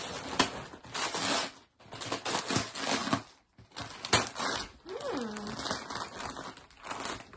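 Gift-wrapping paper being torn and crumpled by hand as a present is unwrapped, in a run of crackling rustles and sharp rips.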